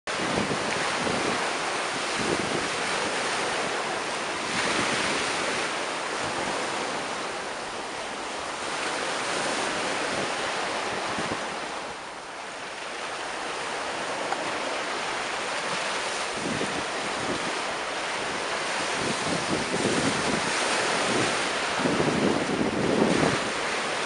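Small sea waves breaking and washing up a sandy beach in a continuous surf wash that swells and eases, with wind buffeting the microphone in low rumbles, strongest near the end.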